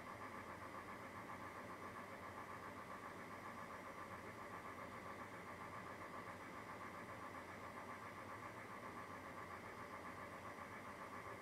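A steady mechanical hum with a fast, even flutter, unchanging throughout, like a motor running.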